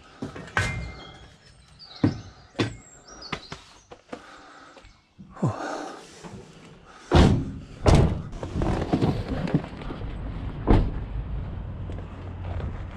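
Van doors slammed shut: two loud thuds about seven and eight seconds in and another near eleven seconds, after lighter clanks of scrap metal being shifted in the van. A low steady hum of the van's engine running follows the slams.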